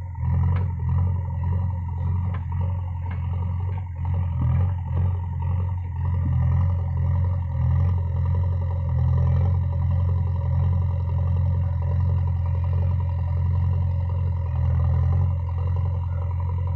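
JCB backhoe loader's diesel engine running steadily at working revs, with a few metallic clanks in the first few seconds.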